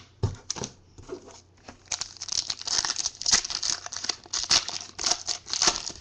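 A foil trading-card pack wrapper being torn open and crinkled by hand. A few light handling clicks come first, then dense crinkling from about two seconds in.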